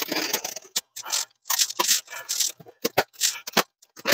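Cardboard shipping box being handled and pried open after its tape has been cut: irregular scraping and rustling of cardboard, with a few sharp clicks about three seconds in.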